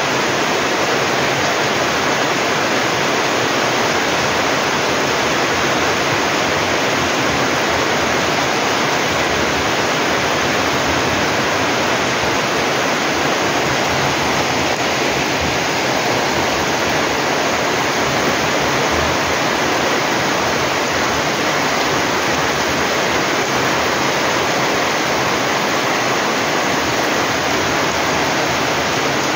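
Heavy typhoon rain pouring steadily onto a flooded, muddy yard and garden: a loud, even hiss.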